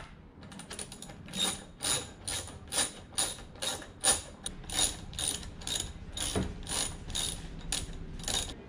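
Hand socket ratchet clicking as it loosens the fuel tank mounting bolts on a Suzuki DR650, in an even rhythm of about two to three clicks a second. One dull knock about six seconds in.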